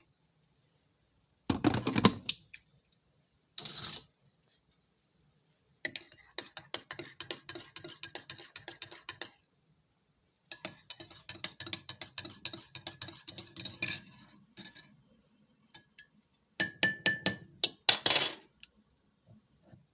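Several bursts of rapid clicking and rattling from small hard objects being handled, with some clinking of dishes or glass.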